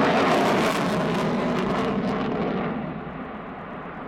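Jet noise from a Sukhoi Su-27's twin AL-31F turbofans as the fighter flies past at a distance. The hiss fades about two seconds in, and the sound grows quieter toward the end as the jet moves away.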